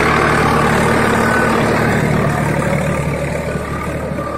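Swaraj 855 tractor's three-cylinder diesel engine running steadily under load while pulling a two-bottom reverse plough, growing fainter toward the end as the tractor moves past.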